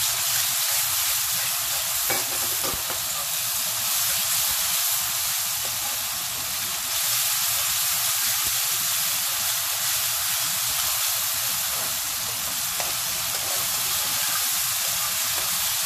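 Ginger-garlic paste with browned onions and tomatoes frying in hot oil in a metal kadai: a steady sizzle, with a slotted steel spoon stirring and scraping through it.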